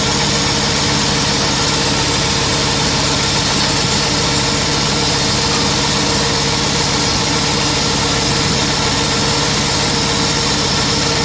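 Small tractor's engine running steadily at an even speed, driving the generator that powers the mobile milking system.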